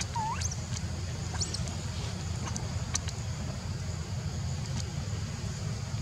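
Outdoor ambience with a steady low rumble and a few short, high squeaks and chirps; the clearest squeak, right at the start, sweeps sharply upward.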